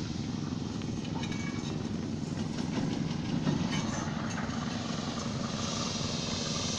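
Heavy construction machinery's engine running steadily, with a few light clicks and knocks in the middle.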